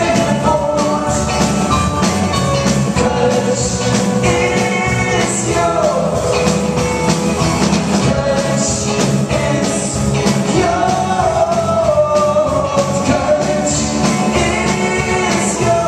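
A live rock band playing a song with a lead singer: sung vocals over electric guitars, drums and keyboard.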